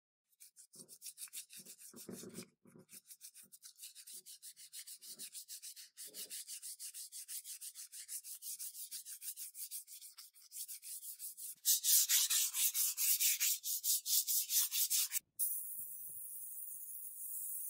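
Abrasive paper rubbing back and forth over a coated steel motorcycle exhaust pipe in quick, even strokes, louder about twelve seconds in. After a sudden cut near the end, the steady hiss of a compressed-air paint spray gun follows.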